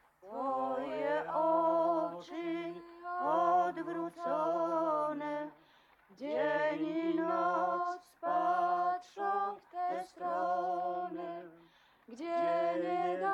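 An elderly woman singing a slow Polish hymn alone and unaccompanied. The drawn-out phrases are broken by short pauses for breath.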